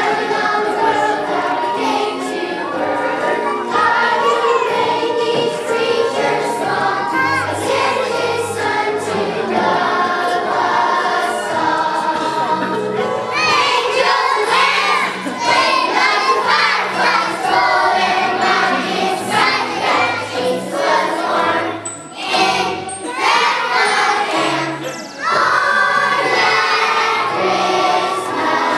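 A children's choir singing together over instrumental accompaniment with a steady bass line.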